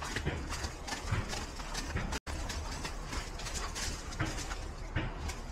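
Footsteps on dry dirt and leaf litter: a string of short, uneven steps over a low steady rumble.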